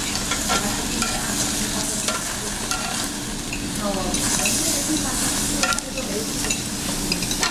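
Slices of meat sizzling on a round tabletop Korean barbecue grill, a steady hiss, with a few clicks of metal tongs as the meat is turned and lifted.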